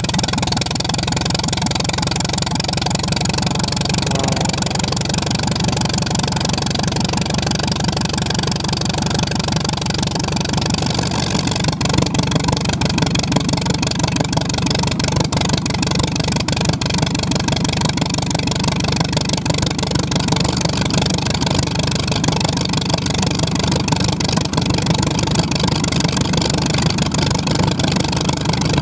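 Klemm 35D's inverted four-cylinder inline piston engine running steadily, with no clear rise or fall in pitch.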